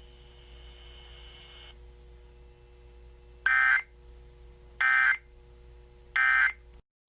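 Emergency Alert System end-of-message code: three short, screechy digital data bursts (SAME two-tone data) about a second and a half apart, signalling that the severe thunderstorm warning has ended. A faint steady hum lies underneath.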